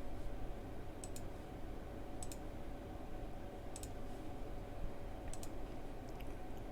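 Computer mouse clicking, a handful of sharp clicks, some doubled, spaced about a second or more apart, over a low steady hum.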